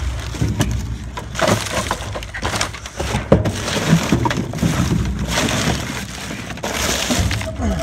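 Trash being rummaged through by hand: plastic bags and empty plastic water bottles crinkling and crackling, with irregular knocks and clicks.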